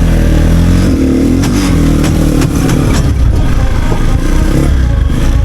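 Motorized tricycle's engine running under load on a road test, its pitch rising and falling, with some clatter. The tricycle has an abnormal noise in forward gear that the mechanic suspects comes from the reverse gear unit.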